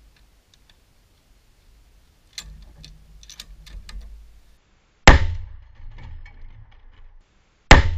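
Two loud rifle shots about two and a half seconds apart, each with a short ringing tail, from a scoped bolt-action rifle clamped in a shooting rest. They come after a couple of seconds of clicks and handling noise at the rifle.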